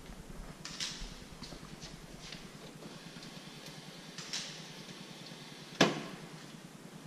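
Faint footsteps on a hard hallway floor, then a stainless drinking fountain run briefly by its push button, with a sharp click about six seconds in.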